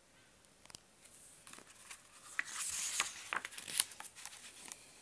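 A page of a hardback picture book being turned by hand: paper rustling and crinkling with a few small taps, starting about a second in and dying away near the end.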